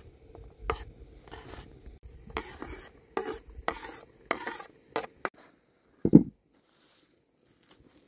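A cooking utensil stirring and scraping against cookware in a run of short strokes, then one dull thump about six seconds in.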